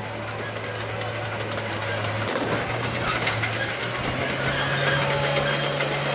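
Renault FT-style light tank driving along a paved street, its engine running and its tracks clattering, getting louder as it comes closer. The engine's pitch steps up twice, about two and four seconds in.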